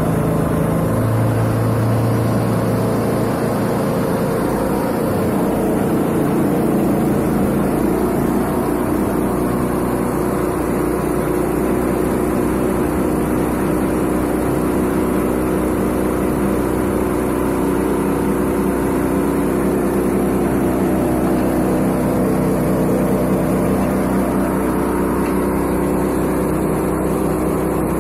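Silage press machine running, its engine giving a steady drone.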